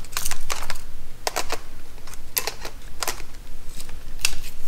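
Sharp plastic-and-metal clicks and short scrapes, irregular and about a dozen in all, as a Sony 18-135mm lens is twisted onto the bayonet mount of a Sony A6500 mirrorless camera; the lens goes on as a snug fit.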